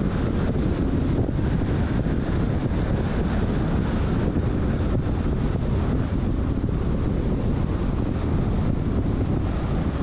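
Steady wind and road noise from a car driving at highway speed, with wind buffeting the microphone and making it rumble.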